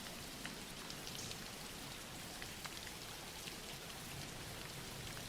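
Steady, soft rain falling, an even hiss with scattered faint drop ticks.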